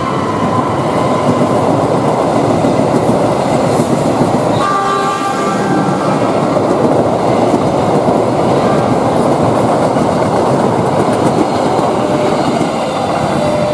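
Coaches of the Jayabaya express passenger train passing close at speed, a loud steady clatter and rush of steel wheels on the rails.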